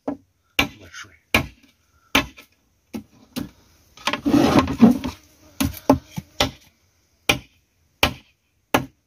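A large knife chopping through a carp's tail against a wooden cutting board, about one sharp blow a second, with a longer, denser stretch of noise about four seconds in.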